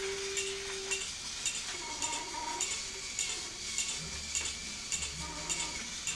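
Battery-run plastic toy train playset running, its mechanism clicking evenly about twice a second. A steady tone sounds at first and stops about a second in.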